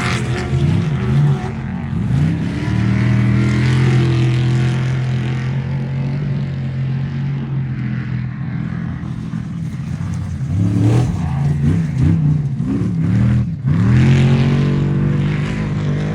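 Off-road race truck engine at high revs: it holds a steady note for several seconds, then the revs rise and fall quickly with a brief sharp drop near the end before settling again.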